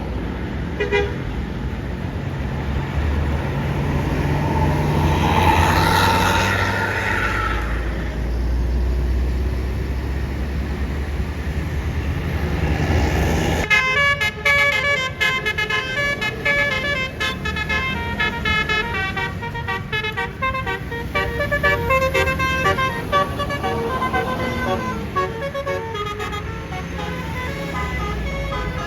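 Road vehicle engines running, with one vehicle swelling past, then about halfway through a Basuri multi-tone bus horn ("telolet") starts playing a fast tune of short, changing notes.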